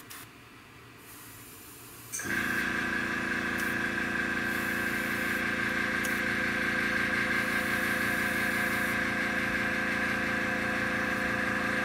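Airbrush compressor motor running with a steady hum as the airbrush mists clear flat lacquer. It starts suddenly about two seconds in and cuts off abruptly near the end.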